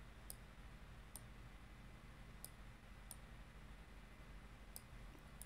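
Faint computer mouse clicks, about six of them spread unevenly over a few seconds, over a low steady hum of room tone.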